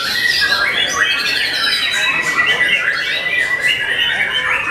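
Several white-rumped shamas (murai batu) singing at once, a dense chorus of loud, overlapping whistled and harsh phrases.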